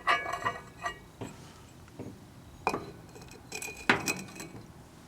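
Glass clinking: about eight sharp taps, each with a brief ringing, spaced unevenly.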